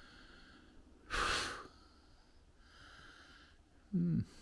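A man's sharp breath out through the nose about a second in, then a short grunted "hm" near the end.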